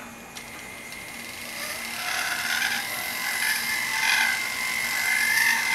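Pedal-driven flex shaft rotary tool running with a steady whine that starts about half a second in, its cutting head grinding out the inside of a carving-wax ring; the grinding noise swells and eases several times as the head is worked around the ring.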